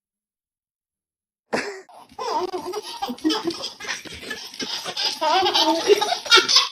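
Dead silence for about a second and a half, then high-pitched laughter, its pitch bending up and down in a long run of giggles.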